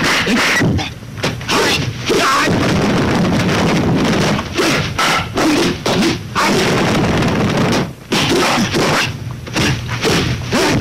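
Kung fu film fight soundtrack: a quick run of exaggerated dubbed punch and slap sound effects, thuds and whacks, typical of kung fu movies.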